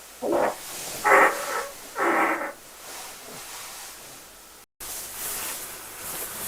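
Three short pitched farts in quick succession, about a second apart, the middle one the loudest.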